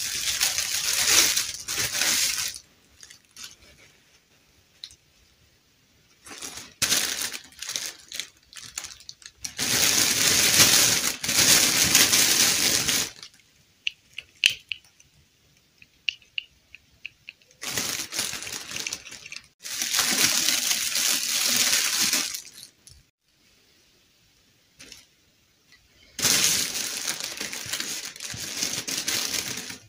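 Clear plastic bag crinkling in several bursts of a few seconds each as hands handle it, with quieter stretches of small clicks and light ticks from small plastic doll pieces being handled.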